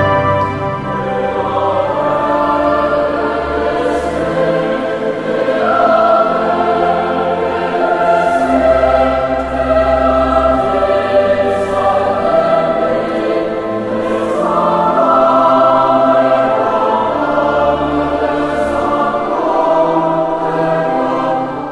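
Background music: a choir singing sacred music in slow, sustained phrases.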